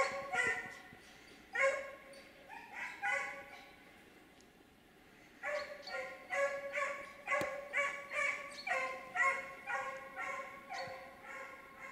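Hunting dog baying on the chase in a series of drawn-out, pitched barks. After a few barks it pauses for about two seconds, then bays steadily at about two barks a second.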